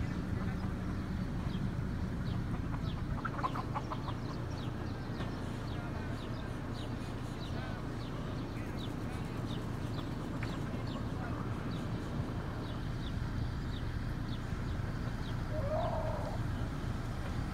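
Free-roaming chickens and roosters clucking now and then, with brief calls about three seconds in and again near the end. Under them runs a steady low rumble, with many short high ticks.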